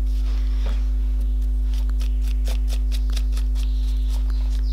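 A paintbrush dry-brushing pigment over a wrinkled, hardened-fabric plaque: soft bristle scratches, then a run of small clicks from about two seconds in. A steady electrical mains hum is the loudest thing throughout.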